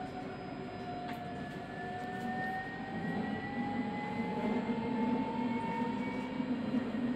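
Alstom Citadis tram running along its track, heard from the driver's cab: the electric traction motors give a whine that rises slowly in pitch as the tram gathers speed, over a rumble of wheels on rail that grows louder from about halfway.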